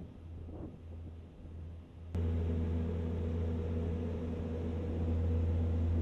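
Lexus LFA's 4.8-litre V10 engine idling with a steady, even hum. It is fainter at first, then after a click about two seconds in it becomes suddenly louder and holds steady.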